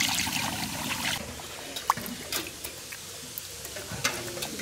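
Sesame oil pouring in a thick stream into an iron kadai, a splashing liquid pour that stops about a second in. After it, only a few faint clicks and scrapes.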